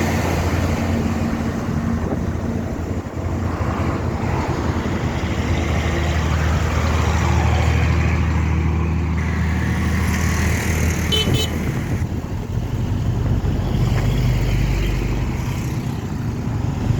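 Road traffic passing close by on a bridge deck: vehicle engines and tyres rumbling, swelling and fading as vehicles go past, with a short horn beep about eleven seconds in.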